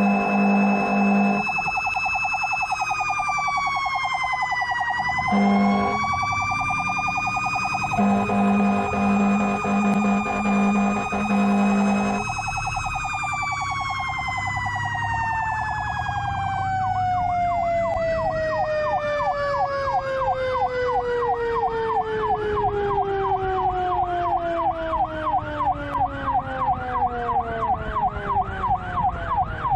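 Fire apparatus responding with a siren that holds a high wail, dips and climbs back, then winds slowly down in pitch, while the air horn sounds in a string of short blasts. Partway through, a second, electronic siren starts a rapid yelp, about two sweeps a second.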